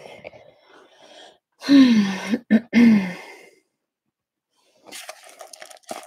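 A person's voice makes two short vocal sounds, each falling in pitch, about two and three seconds in. From about five seconds in comes faint, irregular crinkling of toy packaging being opened.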